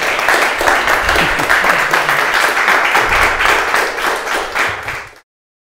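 A small audience applauding, with steady clapping of many hands that cuts off abruptly about five seconds in.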